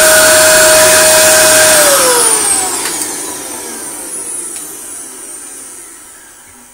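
Dyson DC24 upright vacuum cleaner's motor running at full speed with a steady high whine. About two seconds in it is switched off and winds down, the whine falling in pitch and fading away. The run is a suction check, after which a slight suction leak is suspected.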